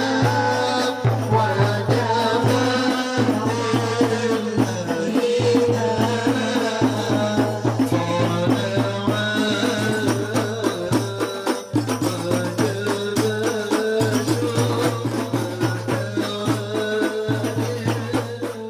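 Hadrah music: rebana frame drums beating a steady rhythm under a sung melody.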